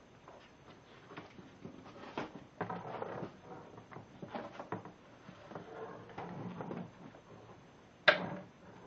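A hard plastic tool case being handled and shifted, with scattered clicks and knocks and one sharp knock about eight seconds in.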